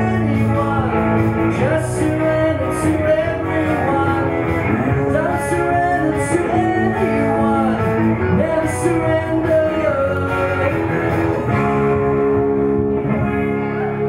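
Live song on an amplified Telecaster-style electric guitar, with a man singing over it in a rock and blues style.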